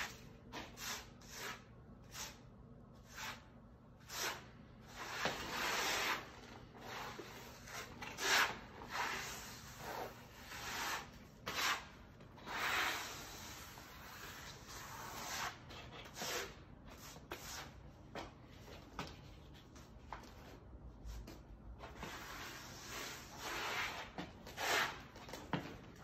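Trowel blade scraping over a concrete floor, spreading a thin coat of wet cement microtopping overlay. The strokes come in an irregular series of rasping scrapes, some short and some long sweeps of about a second.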